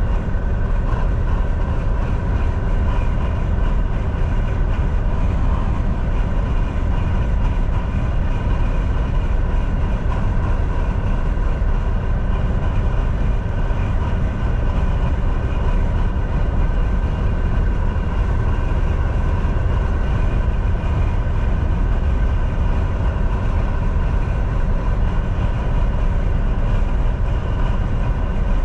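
Semi truck driving at a steady highway speed: a continuous low drone of engine and road noise with a faint constant whine on top.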